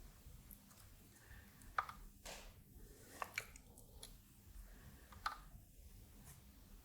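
Faint, scattered sharp clicks and crackles, about five, from soldering work on the lugs of toggle switches on a circuit board.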